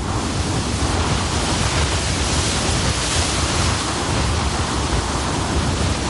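Blizzard wind blowing steadily across open snow, a broad even hiss over a low rumble on the microphone.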